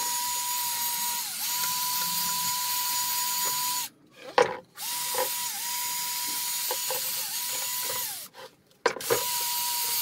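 Cordless drill spinning a wire brush against a rusty steel vice part to clean it. The motor whines steadily, dipping in pitch briefly a couple of times. It winds down and stops briefly about a second in, and stops twice more, around four and eight seconds in, each time with a sharp knock before it starts again.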